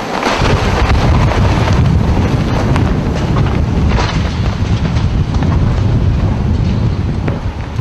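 Tornado winds battering the microphone: a loud, rushing roar with a heavy low rumble that surges up about half a second in. A few sharp knocks sound through it.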